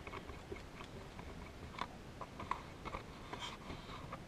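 Soft scattered clicks and light taps of small slot-car parts being handled on a workbench.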